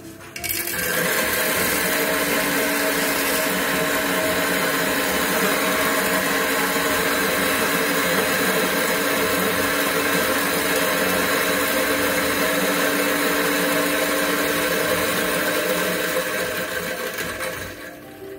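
Hedone Honne electric coffee grinder running, grinding coffee beans into a portafilter: a steady motor hum with the rush of the burrs. It starts about half a second in and fades near the end.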